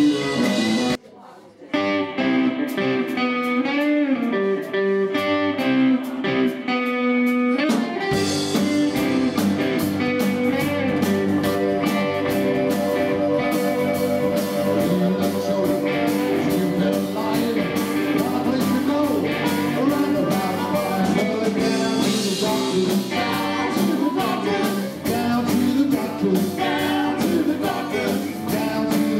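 Live rhythm-and-blues band with electric guitars and vocals. The band stops dead for about half a second a second in, plays a sparse passage with bending notes, then comes back in full from about eight seconds.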